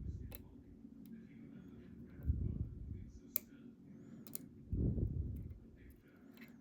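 Lock picks and a tension tool working the pins and sliders of an EVVA ICS dimple lock: a few sharp, small metallic clicks spaced a second or more apart. Twice a low, muffled swell of noise rises and fades under them.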